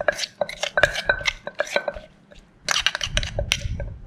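Wooden pestle lightly pounding tomatoes in a clay som tam mortar, a quick run of knocks at about four a second, with a spoon turning the mix. The pounding pauses about two seconds in, then comes another short run of knocks.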